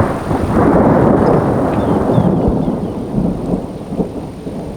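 Low-flying aircraft passing overhead: a loud rumble that swells suddenly at the start, peaks about a second in, then slowly fades.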